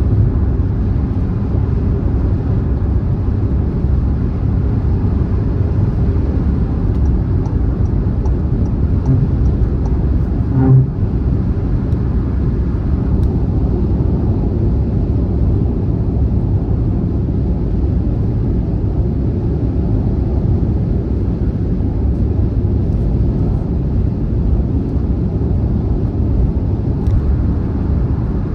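Car travelling at speed on a motorway: a steady low rumble of tyre and engine noise. About eleven seconds in there is a brief louder thump.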